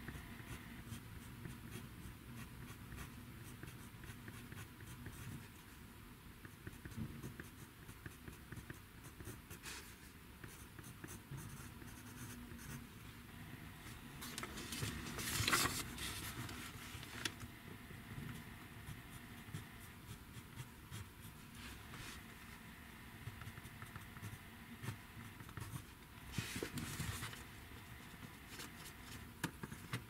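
Pen writing on paper in a workbook, a run of short scratching strokes. There is a louder stretch of rubbing about halfway through and a shorter one near the end.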